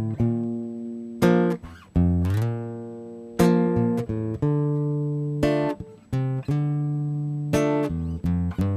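Acoustic guitar strummed in full chords. Each chord is struck and left to ring and fade, with a new strum every one to two seconds and a few quicker strums near the end. It is the song's instrumental opening, before any singing.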